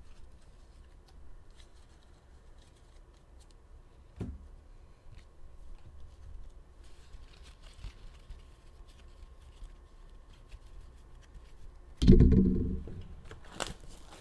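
Handling of a trading-card box and its packaging: faint scrapes and light ticks, a sharp knock about four seconds in, and a loud, brief bump and rustle about twelve seconds in.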